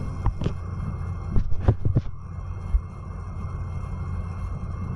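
Steady low hum and hiss of the recording's background, with a few short clicks or knocks in the first two seconds and one more a little later.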